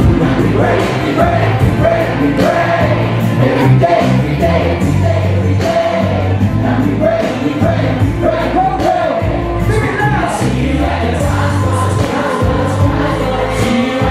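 Live pop music with a steady beat and a strong bass line, and many voices singing the melody together: the concert crowd singing along.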